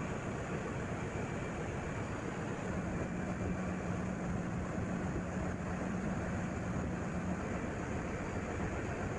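Steady machinery noise in a large container ship's engine room. A steady hum rises out of it about two and a half seconds in and fades shortly after seven seconds.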